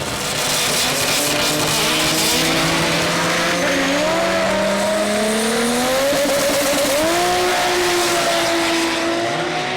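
Drag race car under full acceleration, its engine note climbing steadily in pitch with a break and jump about seven seconds in.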